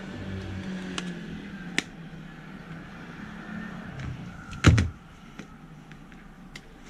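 Small plastic clicks of a CFexpress card being seated in a Nikon D500's card slot and the slot door snapping shut, amid handling noise. A single louder thump comes about two-thirds of the way in.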